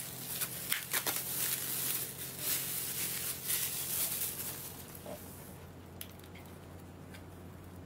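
Packaging being handled and unwrapped: shredded paper filler and a plastic-wrapped box rustling and crinkling, with scattered clicks and crackles. It dies down about five and a half seconds in, leaving a faint low hum.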